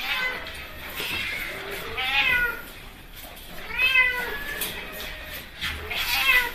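Domestic cat meowing several times, with longer meows that rise and fall in pitch about two and four seconds in.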